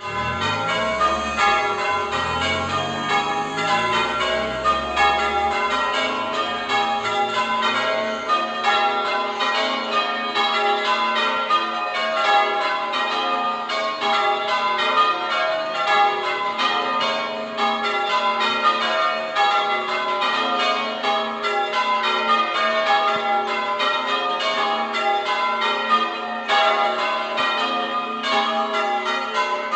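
Church bells being change-rung: a continuous, even run of strikes on several tuned bells, one after another, each note ringing on into the next. A low rumble lies under the first few seconds.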